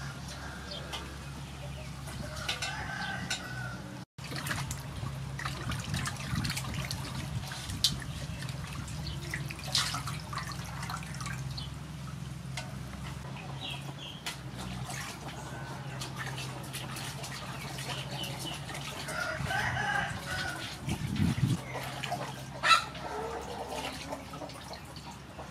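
Water splashing and sloshing in a large aluminium basin as a whole plucked chicken is washed by hand, with a few sharp clacks, the loudest near the end. Chickens cluck now and then in the background.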